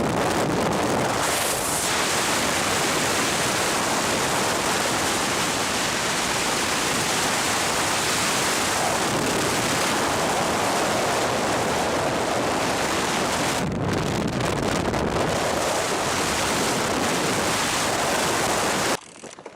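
Loud, steady rushing storm noise that cuts off suddenly near the end.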